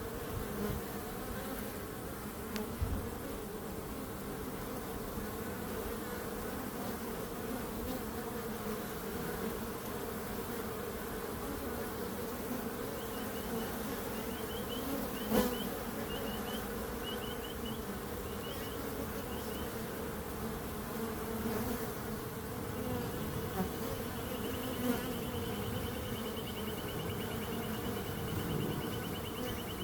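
Bees buzzing: a steady, even drone from many wings, with no break. About halfway through and again near the end, a faint high rapid chirping sounds over it.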